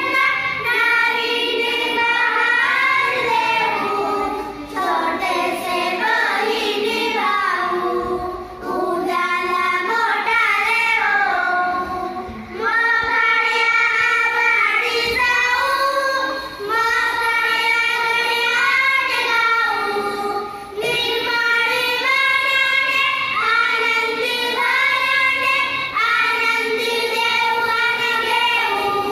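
A group of young girls singing a Marathi children's poem together in unison, in phrases about four seconds long with short breaks between them.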